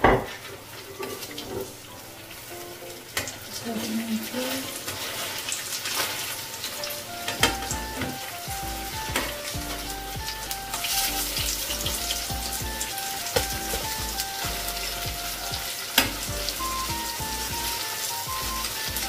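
Cireng (tapioca-dough fritters) sizzling and crackling as they fry in hot oil in a frying pan, with sharp pops every few seconds.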